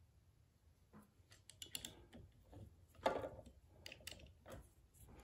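Faint, scattered clicks and light taps of hands and a tool working the bolts of an aluminium spindle clamp on a small CNC's Z-axis, with a louder handling rustle about three seconds in. The clamp is not closing because its bolts are bottoming out.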